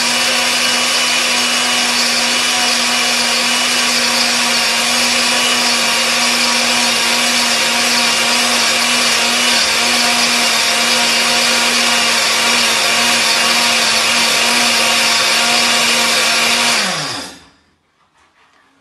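Small electric countertop posho mill running at high speed, grinding grain into flour with a loud, steady motor whine and grinding noise. About 17 seconds in it is switched off and the motor winds down, its pitch falling as it stops.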